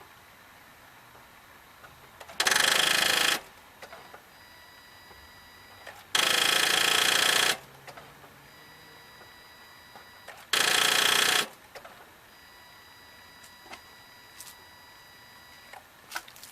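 A 2009 Nissan Rogue's starter solenoid clicking rapidly in three bursts of about a second each as the key is turned to start, with no cranking. The battery reads only about 12 volts, so the clicking points to a weak battery even though the starter is new.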